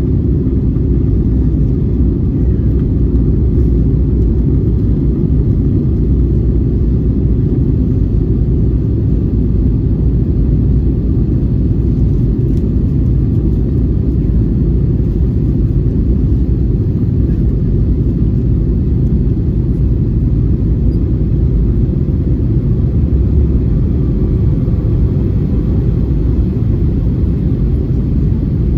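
Steady low rumble of engine and airflow noise inside the passenger cabin of an Airbus A320-214 with CFM56 engines, descending on approach.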